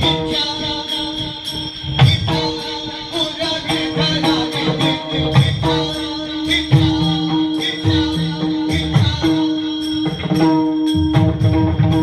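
Kirtan devotional music: a sustained melody line over repeated drum strokes and jingling, tambourine-like percussion.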